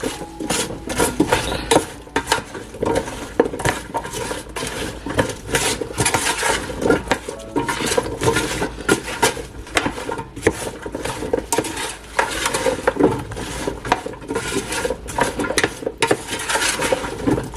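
A utensil stirring chopped cauliflower, potato and onion coated in mustard sauce and seasoning in a pan, a continuous run of quick clinks and scrapes against the pan.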